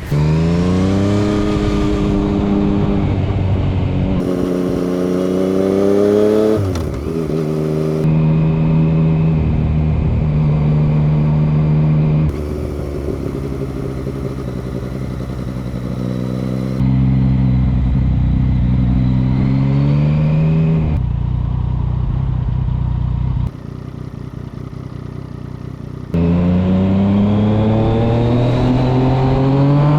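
Motorcycle engine accelerating, its pitch climbing with the revs and falling back at gear changes, recorded raw by a microphone mounted on the bike. The sound changes abruptly every few seconds where clips are cut together.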